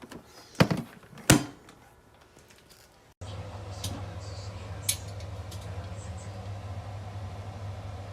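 Two sharp knocks in quick succession about a second in, then a steady low hum with a light hiss that begins abruptly partway through, with a few faint ticks.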